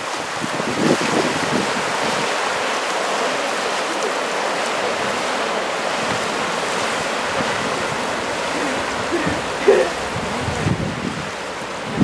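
Steady rush of ocean surf breaking and washing toward shore, mixed with wind buffeting the microphone in low rumbles. There is a brief louder thump about ten seconds in.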